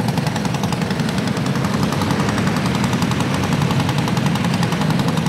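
A pack of racing karts with single-cylinder four-stroke clone engines running at full throttle, a steady, rapid rattling drone. The karts are under green-flag racing in an indoor arena.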